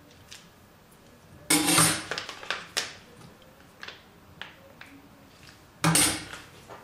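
Metal spoon knocking and scraping against a stainless steel mixing bowl, the bowl ringing briefly after each hit: once about a second and a half in, followed by a few lighter clicks, and again near the end as stirring begins.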